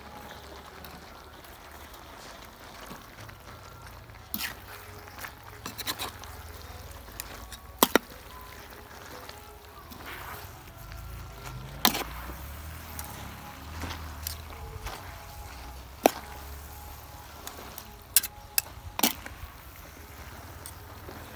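A wire-mesh spider strainer and a metal spatula clanking and scraping against a steel wok as noodles and shredded cabbage are tossed, with sharp metallic clinks at irregular moments: a quick double clink about eight seconds in, single ones near twelve and sixteen seconds, and a cluster toward the end.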